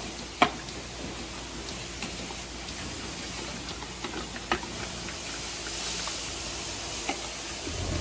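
Steady hiss of milking-parlour machinery, with a sharp metallic click about half a second in, a few fainter clicks and knocks later, and a low thump near the end.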